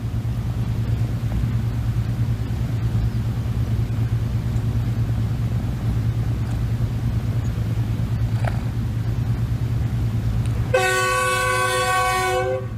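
A steady low rumbling drone with a constant hum, then, near the end, a horn blowing one steady blast of about two seconds before the sound cuts off.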